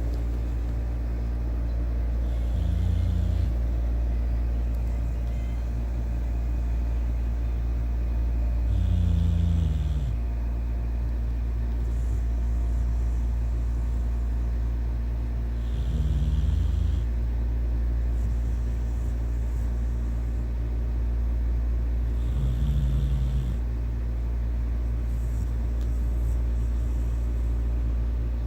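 Pit bull puppy snoring in its sleep: four drawn-out snores, about one every six to seven seconds, over a steady low rumble.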